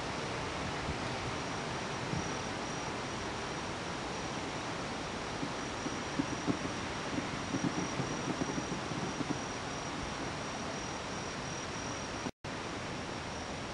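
Steady outdoor night hiss with a high, steady insect trill. From about six to nine seconds in, a cluster of faint pops and crackles comes from distant fireworks. The sound cuts out for a split second near the end.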